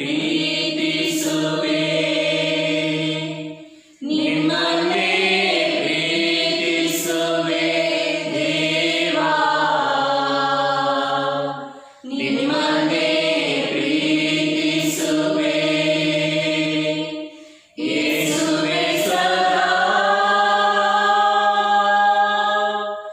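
Slow Kannada devotional hymn sung in four long phrases, with brief breaks between them.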